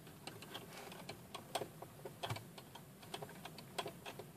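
Screwdriver loosening small screws inside a metal instrument housing: faint, irregular clicks and ticks of metal on metal.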